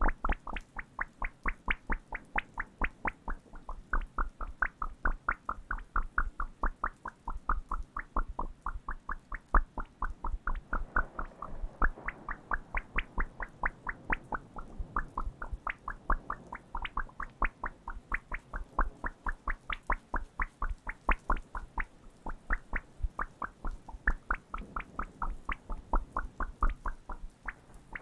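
A playing card curled into a tube, worked by fingers close to the microphone: an even run of short clicks, about three or four a second.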